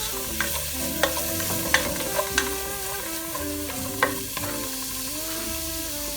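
Chopped garlic and onion sautéing in hot oil in a pan, sizzling steadily as they are stirred, with sharp clicks of the utensil against the pan now and then.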